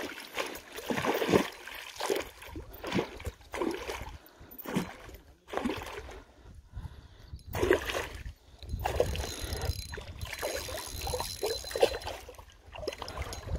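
Irregular splashes and knocks of water and handling around a small fishing boat, with a low rumble from about two-thirds of the way in.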